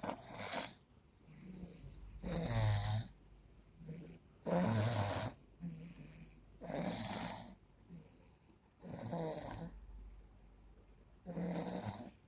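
Heavy snoring in sleep, one loud snore about every two seconds with a softer breath between, from a sleeper who snores when ill.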